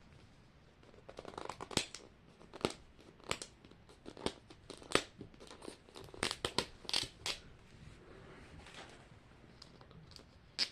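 Plastic packaging of a Mini Brands capsule being handled and opened: a run of sharp crinkles and clicks, thinning out after about seven seconds.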